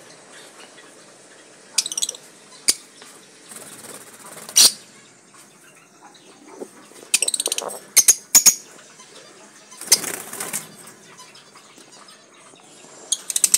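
Caged lovebirds, Fischer's and masked, giving short shrill chirps in scattered bursts, with wings flapping as they flutter about the cage.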